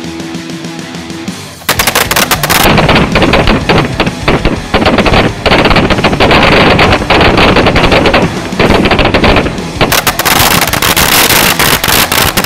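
Rock music with electric guitar, then about two seconds in a bundle of firecrackers goes off: a long, very loud string of rapid bangs and crackles that keeps going, with music still under it.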